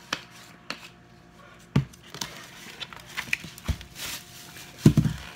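Food-prep handling noises at a kitchen counter: scattered light clicks and crinkles of tinfoil and seasoning, with a few knocks as things are set down, the heaviest near the end.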